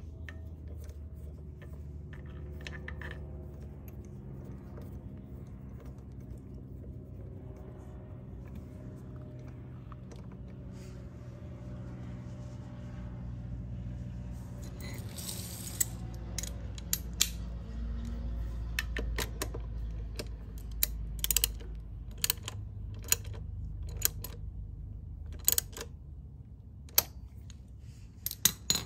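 Gear oil dripping from the drain hole of a Honda Helix scooter's final drive into a plastic drain pan: sharp, irregular drips from about halfway on, over a steady low hum.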